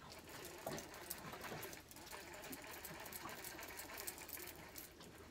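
A multiplier fishing reel being wound in quickly, a faint rapid mechanical whirr of fine clicks, as the rod is lifted to strike at a bite.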